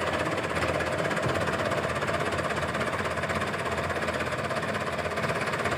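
Diesel engine of a New Holland Dabung 85 tractor running steadily.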